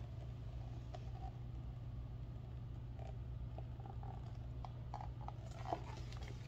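Soft handling noises of a picture book held up and its pages shifted: scattered faint clicks and taps, with one sharper tap about five and a half seconds in, over a steady low hum.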